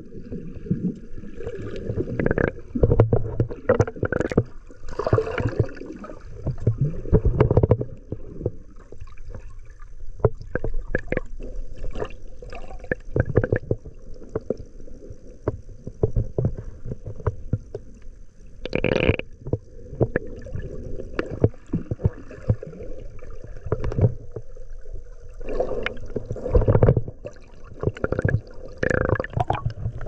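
Muffled underwater sound of water moving around a submerged camera: low sloshing and gurgling with frequent knocks and clicks, and one louder burst a little past the middle.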